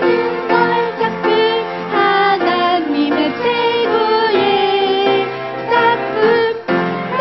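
A children's worship song: voices singing a melody over instrumental accompaniment.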